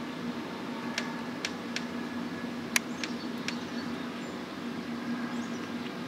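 Steady low hum of indoor room noise, with a few sharp clicks in the first few seconds, the loudest a little under three seconds in.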